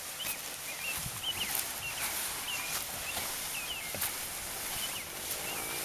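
A small bird chirping over and over in short, quick notes, about two a second, over a steady outdoor hiss, with a few light knocks.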